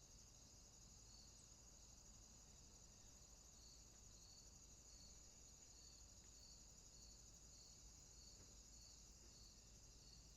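Faint night-time insect chorus of crickets and similar insects: a steady high trill with a shorter chirp repeating about every three-quarters of a second, over a low rumble.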